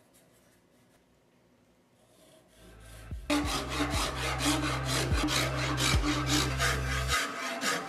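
Metal file rasping across an Osage orange bow limb in quick repeated strokes, starting about three seconds in after a near-quiet start.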